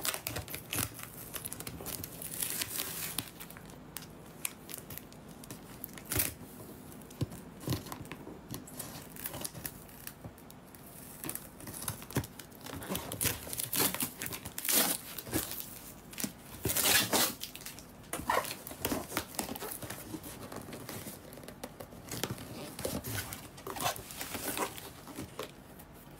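Scissors cutting and slicing packing tape on a cardboard parcel, with tape ripping and cardboard and paper rustling in irregular scrapes and tears.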